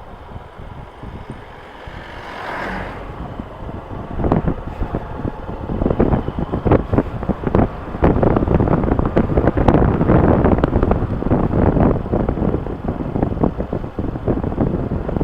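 Motorcycle riding with heavy wind buffeting on the microphone under the engine's sound, growing louder over the first several seconds as the bike speeds up. A short whoosh about two and a half seconds in.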